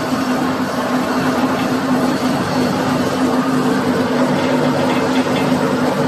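Rebar ring bending machine running with a steady, even hum.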